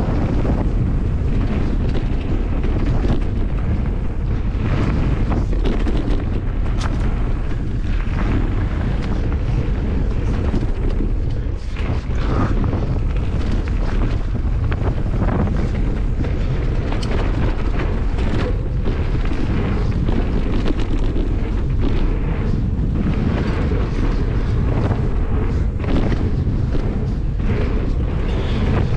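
Wind buffeting the microphone as a Merida Big Trail 500 hardtail mountain bike rides fast down a dirt and gravel trail. Many short knocks and rattles come from the bike over rough ground.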